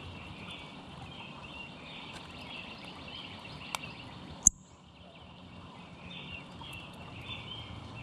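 Steady outdoor background noise with faint, distant bird chirping throughout. About four seconds in come two sharp clicks close to the microphone at the seed feeder, the second much louder with a brief high ring.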